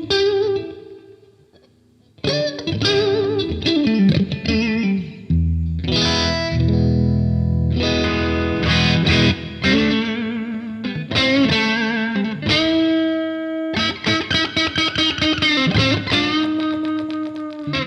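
Japanese Squier electric guitar played through a Demonfx Prince of Sound overdrive pedal with the drive dialed back to about half: a lick of bent, vibrato notes and chords with mild overdrive. The playing stops briefly about a second in, then starts again.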